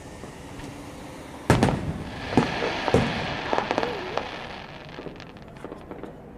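Aerial firework shell bursting with a loud bang about a second and a half in, followed by a couple of sharper pops and a spell of crackling that fades over the next few seconds.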